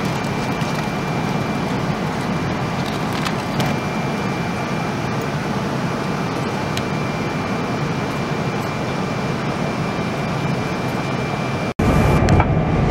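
Steady in-flight cabin noise of a Boeing 777-200ER, an even hiss with a faint high steady whine and a few light clicks. Near the end it drops out for an instant and comes back louder and deeper.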